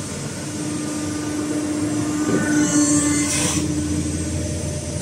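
Hydraulic press brake's electric motor and hydraulic pump running with a steady hum, with a short hiss rising about two and a half seconds in and fading near three and a half seconds.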